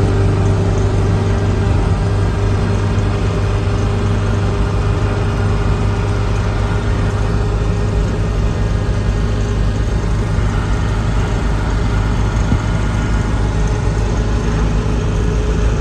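1952 Morris Minor's side-valve four-cylinder engine running steadily under way, heard from inside the car's cabin along with road noise, with a strong low hum at an even speed.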